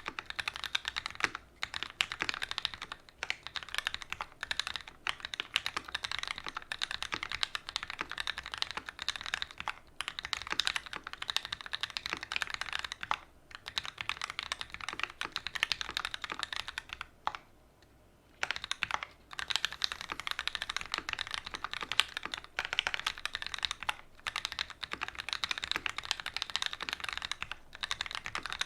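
Fast continuous typing on a custom mechanical keyboard with Gateron Ink Black linear switches in an aluminium plate and GMK keycaps: a dense stream of keystroke clacks, with a pause of about a second roughly two thirds of the way in.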